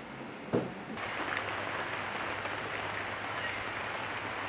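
A single knock about half a second in, then steady rain falling on wet stone paving, an even hiss.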